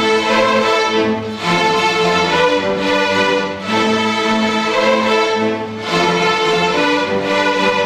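Massed string orchestra of some 270 student players, violins, cellos and double basses together, playing held chords, the chord changing every second or two with a brief dip between.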